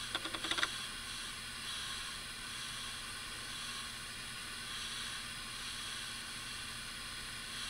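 Steady background hiss with a faint low hum: room tone. In the first second there is a short run of quick, faint pulses.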